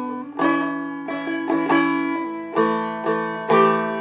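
Seagull Merlin M4 strummed with a flatpick: several strums with the drone strings ringing under the melody note, which steps down a few times, each note held and left to ring.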